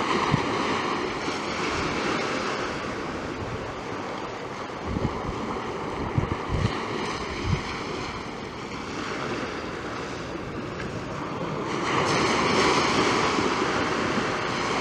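Surf breaking and washing onto a sandy beach, with wind buffeting the microphone in a few low thumps midway; the surf swells louder near the end.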